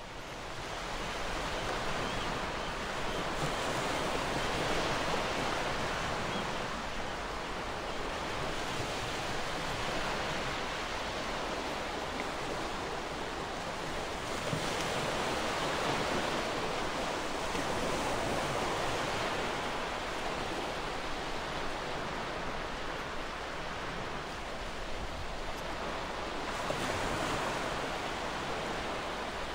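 Ocean surf: a steady rush of waves that swells and ebbs every few seconds.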